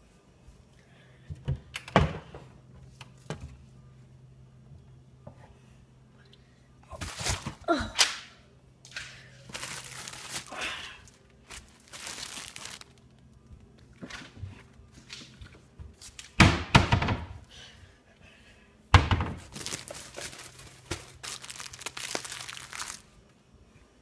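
Household handling sounds: a series of thunks and knocks as objects are picked up and set down, with several longer bursts of rustling noise between them. A low steady hum runs underneath and stops shortly before the end.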